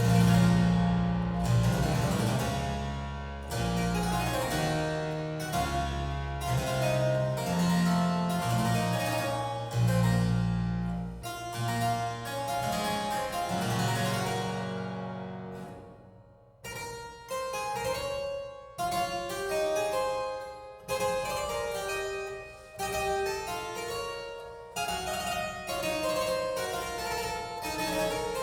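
Harpsichord music played back through Elfton Vegas II four-way loudspeakers, starting suddenly out of silence. For the first part, long low bass notes sound under the plucked chords. About sixteen seconds in the music briefly drops away, then a lighter, quicker passage of plucked notes follows.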